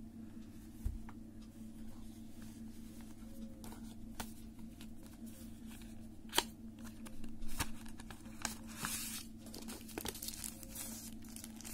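Hands handling a smartphone's cardboard retail box and its inserts: scattered clicks and taps, one sharp click about six seconds in, and packaging crinkling between about seven and nine and a half seconds, over a steady low hum.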